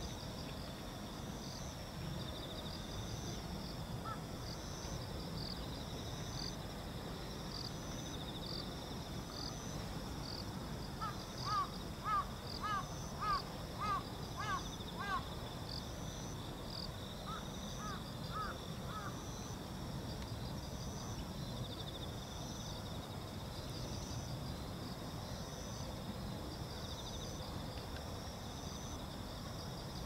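A crow cawing about seven times in quick succession about a third of the way in, then a few fainter caws shortly after. Underneath, insects chirp in a steady repeating pattern over a low background rumble.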